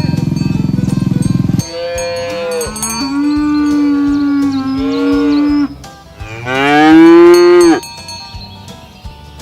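Cattle mooing: one long, drawn-out moo lasting about four seconds, then a shorter, louder moo that rises and falls. A low droning sound fills the first second and a half.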